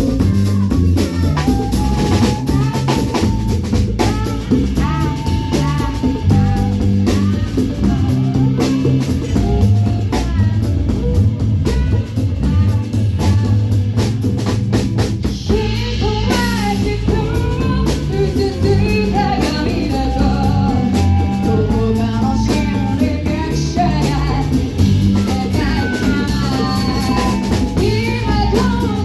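A band playing a rock song live, with a drum kit, bass and electric guitar, in a passage where no lyrics are picked out. The drumming is busiest in the first half, and a wavering melody line comes in during the second half.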